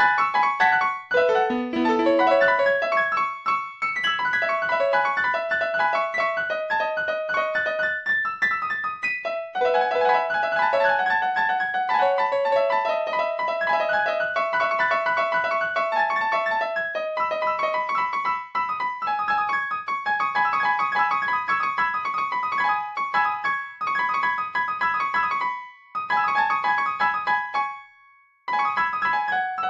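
Solo piano music, a melody of separate notes over chords, with a short pause near the end.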